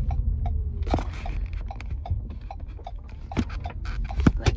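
Low road and engine rumble inside a moving car's cabin, with a light regular ticking about two to three times a second. A few sharp knocks, the loudest near the end, come from the phone being handled.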